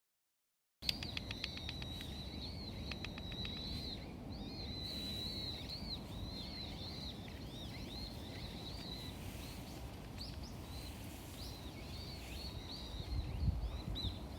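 Small birds chirping and twittering in quick, repeated short notes over a steady low rumble of outdoor background noise, with a brief rapid clicking trill early on and a few low bumps near the end.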